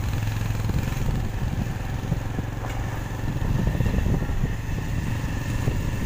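Motorcycle engine running steadily while riding along, with a continuous low rumble.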